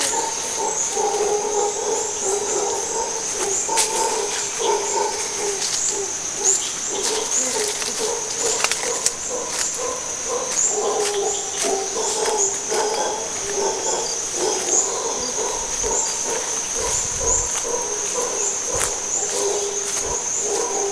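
Howler monkeys howling continuously: deep, wavering roars from a troop close by. A steady high-pitched chirring runs underneath, with scattered crunches of footsteps on dry leaves.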